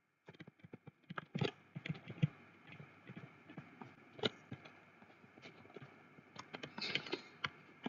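Faint, irregular taps and clicks of a stylus writing by hand on a tablet, with a denser run of quick taps near the end.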